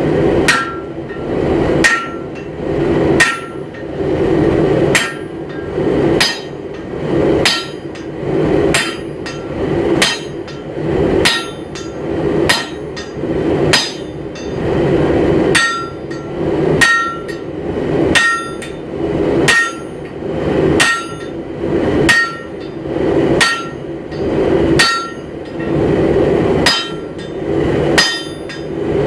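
Hammer blows forging hot steel on an anvil, struck in a steady rhythm of about one and a half blows a second, some of them leaving a brief metallic ring from the anvil.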